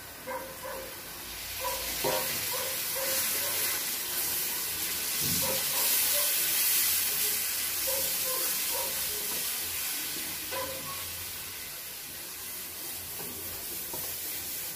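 Sugar syrup sizzling as it is poured into wheat flour roasted in hot ghee, with a wooden spatula stirring and scraping the pan. The sizzle swells over the first couple of seconds, is loudest midway, then slowly eases.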